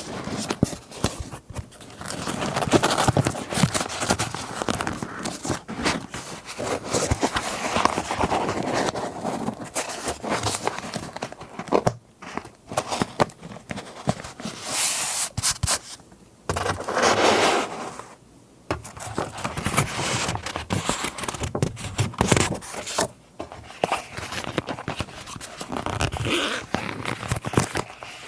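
Paper rustling and crinkling as scrapbook papers are handled, with small scrapes and taps mixed in. It goes on irregularly, with a few short pauses.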